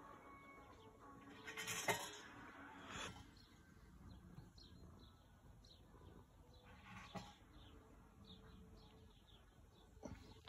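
Faint birdsong: scattered short chirps from small birds. A few brief louder noises break in, the strongest about two seconds in.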